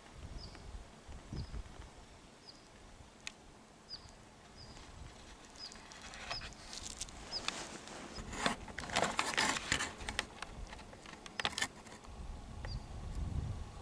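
Rustling and crackling of long dry grass and clothing as a person shifts position, densest in the second half, with a low handling rumble near the end. Behind it a small high chirp repeats about every half second, mostly in the first half.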